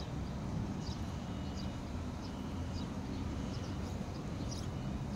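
Open-air field ambience: a steady low rumble with short, high chirps coming irregularly every half second to a second.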